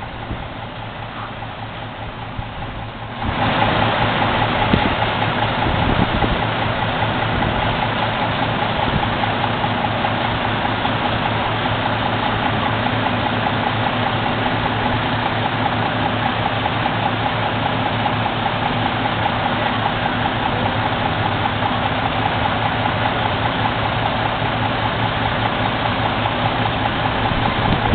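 Truck engine idling steadily, with a constant hum over a wide rushing noise. It becomes much louder about three seconds in.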